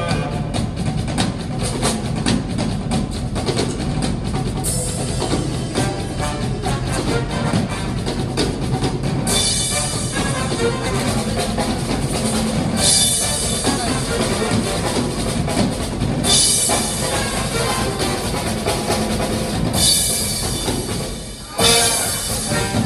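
Band music driven by a drum kit, with a steady bass-drum and snare beat and a cymbal crash about every three and a half seconds. Near the end the music briefly drops away, then comes back in with a loud hit.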